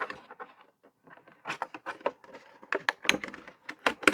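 Irregular clicks, taps and rustles of small plastic parts and packaging being handled and rummaged through.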